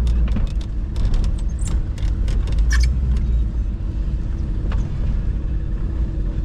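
Chevrolet Chevelle's big-block V8 running at low speed with a steady low rumble. A few light clicks and ticks sound over it.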